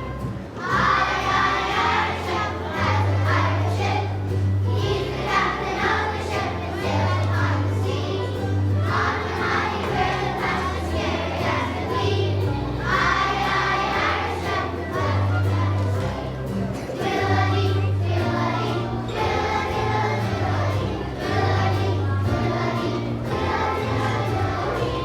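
A choir of young children singing a song over instrumental accompaniment with a steady, rhythmic bass line.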